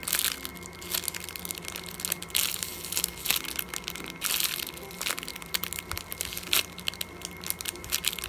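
Clear plastic packaging crinkling and crackling in irregular rustles as bagged squishy toys are handled, turned over and pressed through the plastic.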